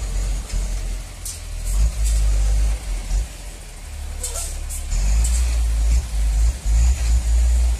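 The FAW J6P dump truck's diesel engine rumbling unevenly as the heavy truck creeps through deep mud, with a few short high hisses.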